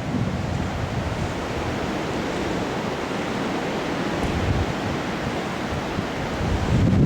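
Strong wind blowing: a steady, even rushing noise.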